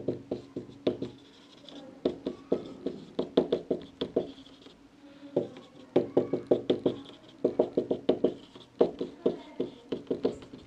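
Marker writing on a whiteboard: quick runs of taps and scratchy strokes as each letter is written, in bursts with short pauses between words.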